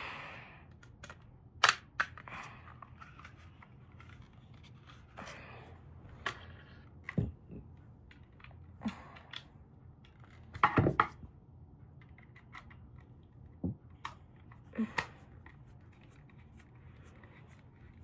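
Hard plastic parts of an emptied power strip being handled and fitted back together: scattered clicks and knocks, with a sharp one about a second and a half in and a short clatter past the middle.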